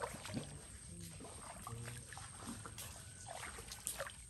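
Footsteps wading through shallow water over mud: irregular small splashes and sloshes.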